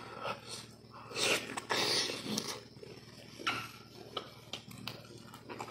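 Close-up mukbang eating sounds of a man chewing kikil (beef skin) and rice with his mouth closed: wet chewing and sharp lip smacks. About a second in come loud, noisy breaths, then a quick run of smacking clicks in the second half.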